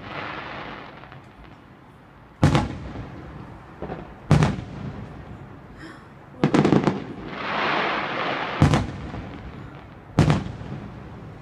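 Aerial fireworks shells bursting with sharp booms every couple of seconds, including a quick cluster of several bangs a little past the middle. Just after that cluster comes a few seconds of fizzing crackle from a glittering burst.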